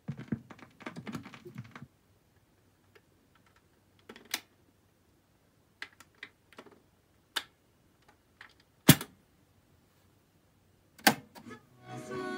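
Small mechanical clicks and clunks from a BSR auto-changer turntable as its tonearm is lifted off the record and returned to its rest. Scattered single clicks follow, the sharpest about nine seconds in and another just before the end.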